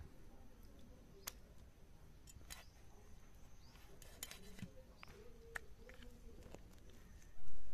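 Raw fish slices being cut and scraped against a boti, a fixed upright cutting blade: a few scattered sharp clicks and scrapes of the blade through skin and bone. A louder sound swells near the end.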